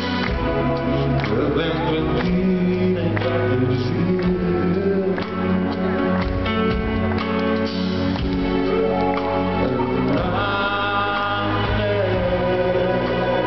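Live band performance: a male lead vocal singing over drums and full band backing.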